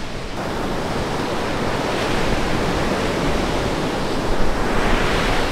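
Ocean surf breaking and washing up a sandy beach, a steady roar of white water that swells as a wave breaks about four seconds in.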